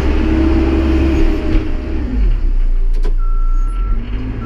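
Backhoe loader's engine running loud under load, its note dropping about two seconds in. About three seconds in, its reversing alarm starts with a steady high beep.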